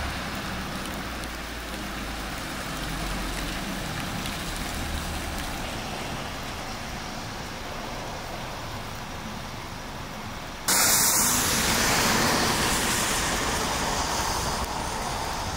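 Rain and road traffic on a wet street, with the low rumble of a vehicle in the first few seconds. About eleven seconds in the sound jumps abruptly to a louder, even hiss of rain.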